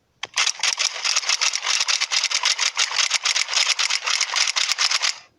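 A downloaded sound-effect clip playing back from a phone: a loud, dense rattle of many quick, even hits that starts just after a light tap and cuts off abruptly near the end.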